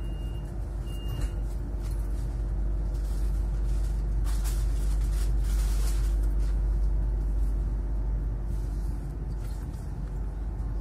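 Stadler ESh2 double-decker electric train running, heard from inside the carriage: a steady low rumble of wheels and running gear with a steady hum, growing slightly louder from about two seconds in. A few short high beeps sound in the first second or so.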